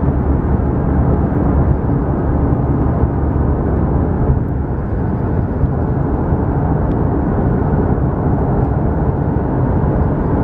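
Steady road and engine noise inside a moving car's cabin: an even low rumble.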